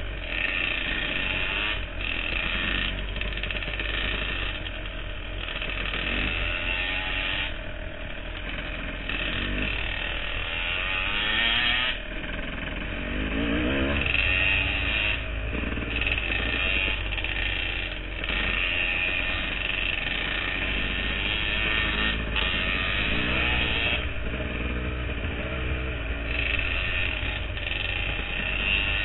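Dirt bike engine running close to the microphone as the bike is ridden along a trail. Its pitch rises and falls repeatedly with the throttle.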